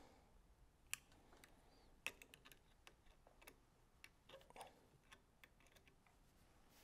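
Faint, scattered clicks and ticks of a small hand driver tightening the screws on a compound bow's arrow rest, with two sharper clicks about one and two seconds in.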